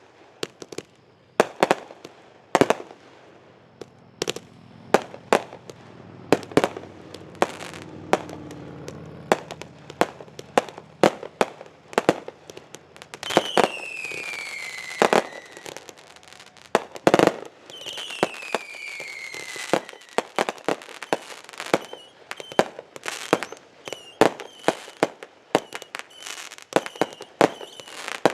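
Consumer fireworks going off in quick succession: a steady string of sharp bangs and pops, with two whistles falling in pitch about halfway through and a run of short repeated whistle chirps near the end.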